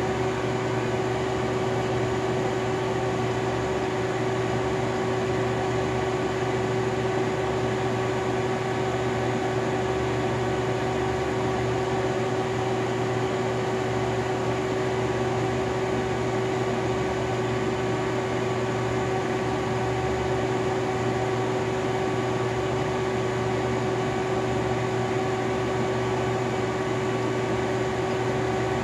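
Robinair A/C recovery and recharge machine's built-in vacuum pump running, a steady, unchanging hum with one strong constant tone, as it evacuates a car's air-conditioning system before the leak test and refrigerant charge.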